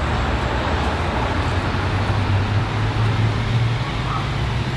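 Steady street ambience dominated by a continuous low rumble like passing traffic, with a general hiss of the surroundings.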